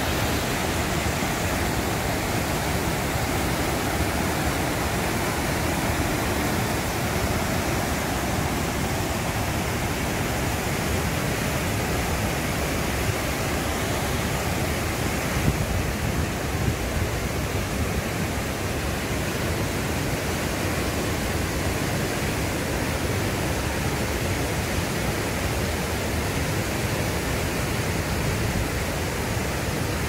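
Whitewater river rapids and a broad waterfall rushing, a steady, unbroken roar of water.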